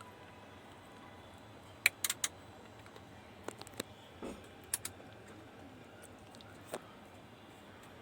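A handful of short, light clicks and taps scattered irregularly, from tools and parts being handled on a repair bench, over a faint steady background.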